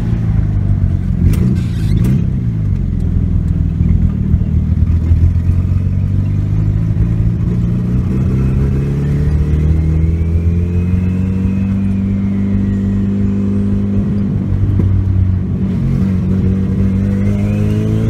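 Turbocharged Subaru Justy engine heard from inside the cabin while driving. It runs steadily at first, then pulls up through the revs in the second half. A high whine rises and falls and climbs again near the end.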